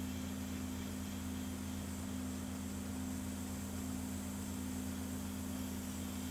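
Steady hum of a small electric motor under an even airy hiss, from an airbrush painting setup; it holds unchanged throughout.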